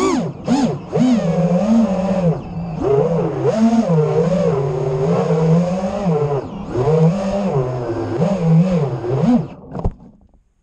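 FPV drone's motors whining, the pitch rising and falling again and again with the throttle. Near the end the whine dies away and there is a single knock as the drone comes down in the grass.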